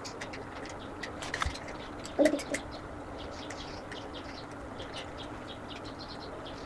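Light clicks and taps of a tripod's plastic phone-holder clamp being handled and fitted together, with a slightly firmer knock about two seconds in. A faint steady hum lies underneath, and faint short high chirps come in the second half.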